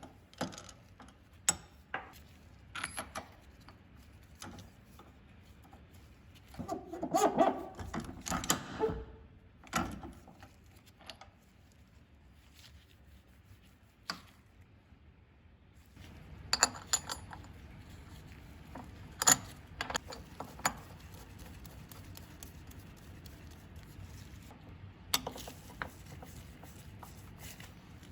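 Scattered clicks, taps and metallic clinks of small parts and hand tools being handled, with a denser rattling clatter about seven to nine seconds in.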